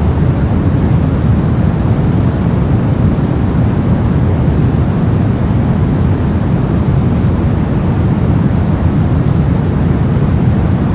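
Brown noise: a steady, deep rumbling hiss, strongest in the low end and dull in the highs, with no change throughout.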